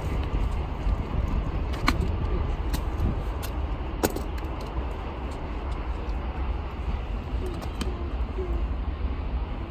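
Steady low outdoor rumble, like traffic or wind, with a couple of sharp clicks about two and four seconds in.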